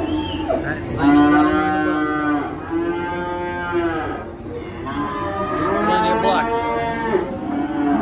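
Penned calves bawling: several long, drawn-out moos in a row, some overlapping.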